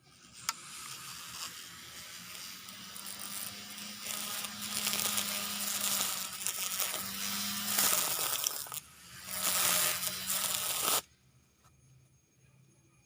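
A small motorised grass-cutting machine running with a steady hum while grass tears and rustles through it in a loud, rough rush. The hum drops away briefly about eight and a half seconds in, and the whole sound cuts off suddenly about two seconds before the end.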